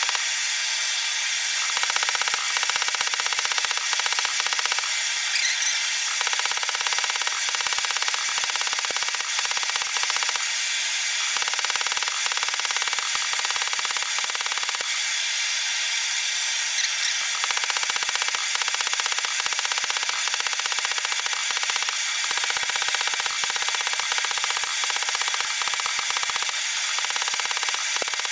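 Hand hammer striking a white-hot cable Damascus billet on a steel anvil in runs of quick blows with a few short pauses, forge-welding the layers. Under the blows runs the steady hiss of a gas forge burner.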